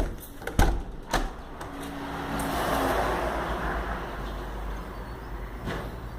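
A door being handled and shut: several sharp knocks and clicks in the first second or so and another near the end, with a swell of noise in the middle over a steady low rumble.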